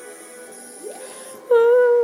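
Quiet soundtrack music from a television, then a loud steady tone with overtones starts suddenly about one and a half seconds in.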